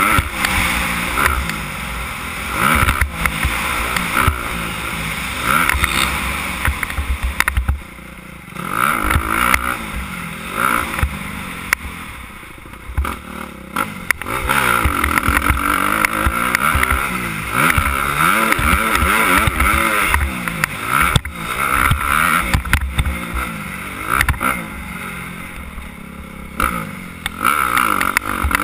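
Suzuki 250 motocross bike engine revving up and down as it is ridden hard around a dirt track, with wind noise on the microphone. The throttle is shut off briefly about 8 seconds in and again around 12 seconds, then opened back up.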